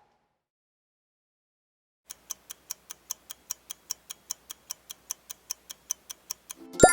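About two seconds of near silence, then a clock-ticking countdown sound effect: quick, even ticks, about five a second. A sudden louder sound-effect hit comes just before the end.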